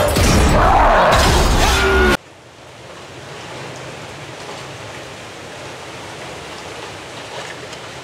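Loud cartoon soundtrack, music with sliding-pitch effects, which cuts off suddenly about two seconds in; a steady, much quieter hiss of background noise follows.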